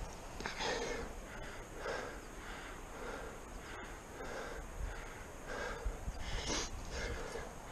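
A rock climber breathing hard in and out through a steady run of breaths, about one a second, from the effort of climbing a granite crack.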